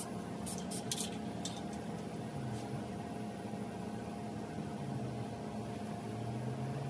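Short hissing bursts from an aerosol can of matte clear coat being sprayed onto a cork duck decoy, several quick sprays in the first few seconds, over a steady low hum.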